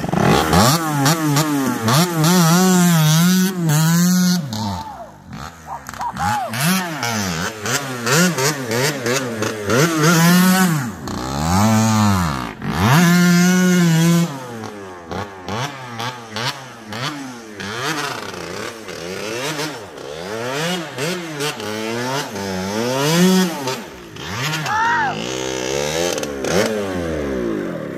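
1989 Kawasaki KX80's single-cylinder two-stroke engine being ridden, revving up and dropping back over and over, and held at high revs for a second or two several times.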